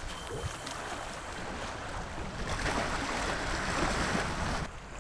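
Wind and bay water washing against a rocky shoreline, an even rushing noise that swells louder for about two seconds past the middle, then cuts off suddenly near the end.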